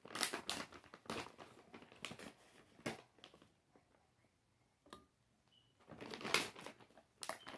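Plastic bag of mango chunks crinkling as it is handled, in two spells of rustling with a quieter pause in the middle.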